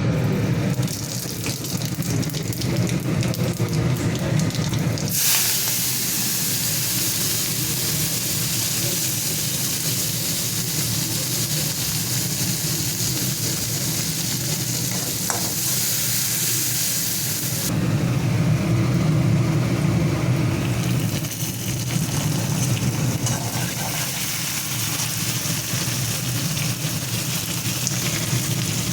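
Food frying in hot oil in a pan, a steady sizzle that grows brighter and louder about five seconds in, over a low steady hum.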